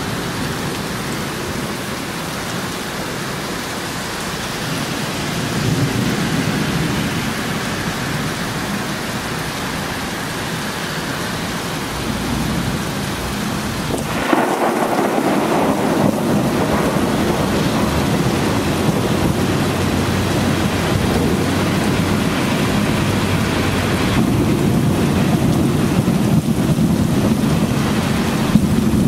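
Heavy rain pouring steadily with rolling thunder rumbling underneath. About halfway through, the sound jumps sharply louder and the deep rumble and rain stay stronger afterwards.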